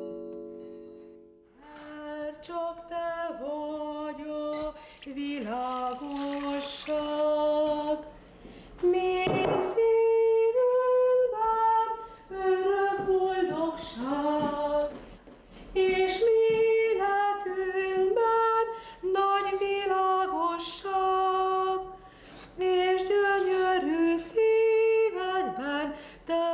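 A woman singing a melody in short phrases with brief pauses between them; a guitar chord dies away at the very start.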